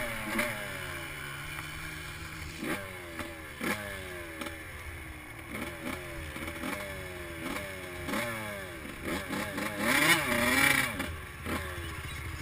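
Suzuki RM85 two-stroke dirt bike engine revving up and down again and again while being ridden, with its loudest burst of revs about ten seconds in.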